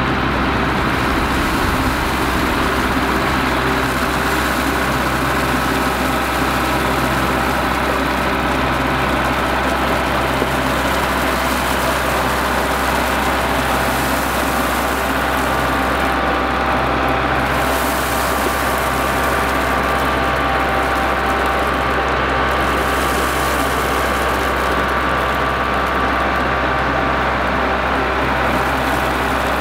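Kubota MX5400 tractor's diesel engine running steadily while it drives and works its front loader.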